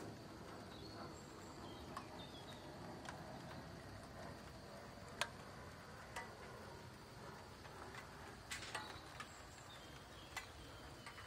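Quiet outdoor ambience: an even background hiss with a steady high thin tone, a few faint short high chirps, and scattered sharp clicks, the loudest about five seconds in.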